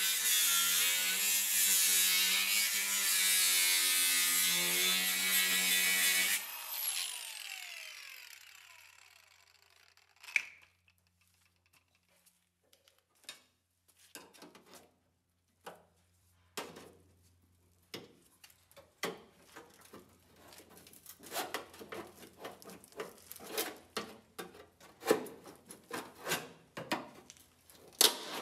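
Angle grinder running against the rusty steel body of a Porsche 914, throwing sparks, then switched off about six seconds in and spinning down with a falling whine. After that, scattered faint clicks and taps.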